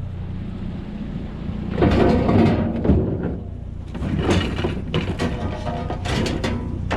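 Scrap metal being handled, with irregular clanks, knocks and rattles starting about two seconds in.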